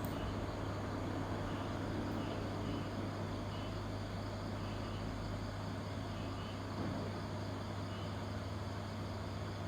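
An engine running steadily: a constant low hum with an even rumble, unchanging in pitch and level.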